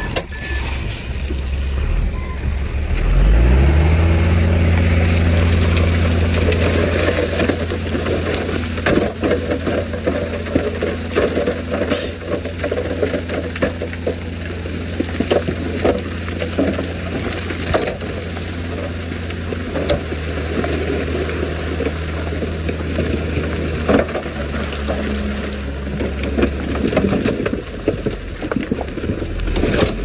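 Heavy diesel engine of earthmoving equipment revving up about three seconds in, then running steadily under load, with scattered knocks and crunching of rock.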